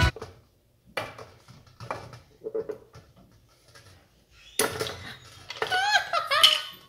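Ice cubes and a wooden spoon knocking and clinking against nested glass bowls standing in water. About four and a half seconds in, a louder run of high, wavering squeaks follows as the bowls are worked against each other.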